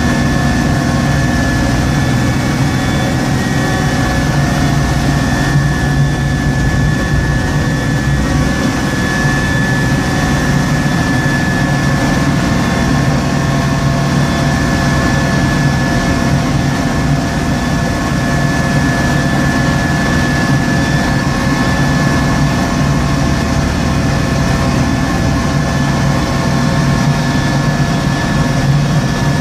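Heard from inside the cab: a vehicle engine running steadily under load while a front-mounted snow blower throws snow, with a steady high whine over the engine's low running.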